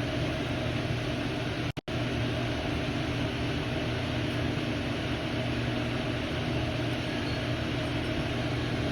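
Honda EU7000iS inverter generator engine running steadily with an even hum. The sound drops out for an instant twice about two seconds in.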